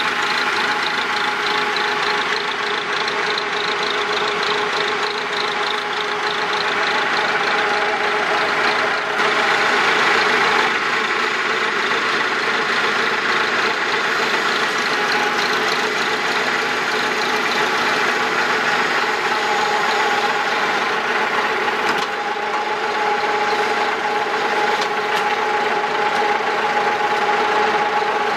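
Engine running steadily under load with a constant whine, powering the hydraulics of a log grapple that handles a long log onto a horizontal log splitter.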